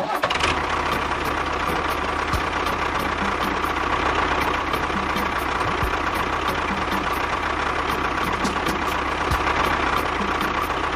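A motor running steadily with an engine-like drone and a hum, cutting in suddenly at the start and holding without change.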